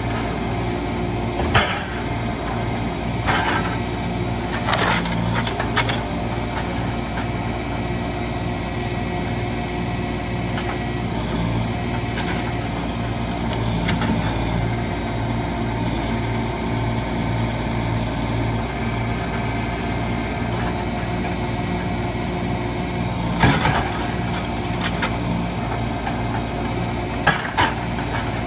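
Engine of log-loading machinery running steadily, with several sharp knocks and clunks as logs are handled, a cluster in the first few seconds and two more near the end.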